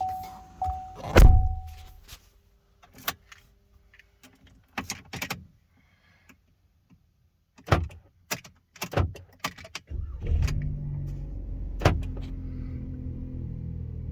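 Scattered clunks and knocks from the 2018 Chevy Colorado's cab, with a brief chime early on. About ten seconds in, the truck's engine starts and settles into a steady idle with no repeating clicking, after the key remote's dead batteries were replaced.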